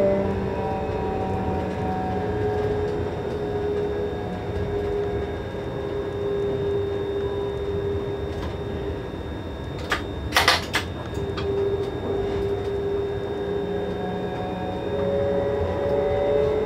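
ÖBB Taurus (Siemens ES64U2) electric locomotive running, heard from inside its cab: steady running noise with the whine of its traction converter and motors, several tones that slide slowly in pitch as the speed changes. About ten seconds in comes a brief clatter of sharp clicks.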